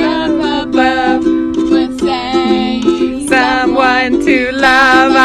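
Ukulele strummed in chords, with a voice singing a melody over it.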